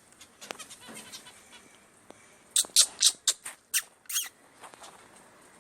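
Pet birds chirping: a quick run of about seven sharp, high calls about two and a half seconds in, with a few fainter chirps before them.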